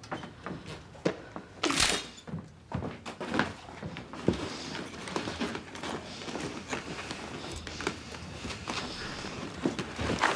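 A string of short knocks, thuds and creaks, with one louder, longer hit about two seconds in.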